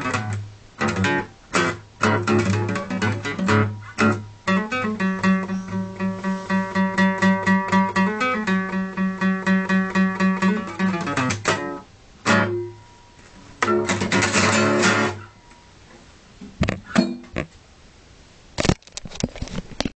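Acoustic guitar playing blues: a run of fast, evenly repeated picked notes, then a strum and a final chord that rings for a second or so before the playing stops. A few knocks follow near the end.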